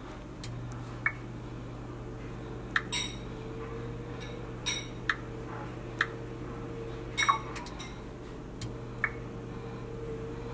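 Short taps and brief electronic beeps from a glass touchscreen oven control as bake temperature and cook time are keyed in, about a dozen scattered clicks. A steady low hum comes in about half a second in and runs under them.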